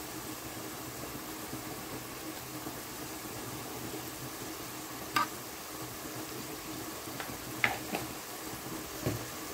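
Onion-tomato masala frying in oil in a pan, a steady low sizzle, with the masala cooked down until the oil has separated. A few sharp clicks stand out about five seconds in and again near eight seconds.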